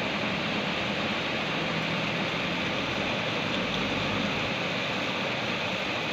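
Steady rush of rain and muddy floodwater running down the street, with a backhoe loader's diesel engine running underneath.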